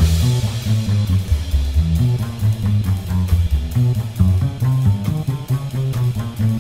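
Background rock music: a bass line of short moving notes with guitar over a steady drum beat.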